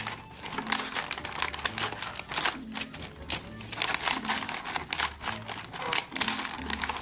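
Clear plastic clamshell egg packs crinkling and crackling as they are pushed together and against newspaper lining in a plastic basket, a dense run of small irregular crackles.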